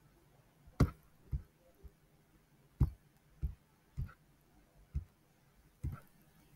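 Computer mouse clicking: about eight sharp, separate clicks at irregular intervals.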